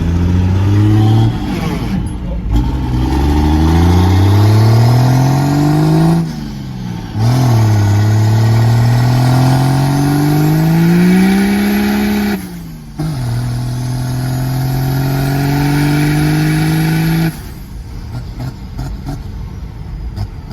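P-pumped 24-valve Cummins diesel truck accelerating hard through the gears: the engine note climbs, breaks and drops at each of three shifts, then holds a steady pitch and eases off a few seconds before the end.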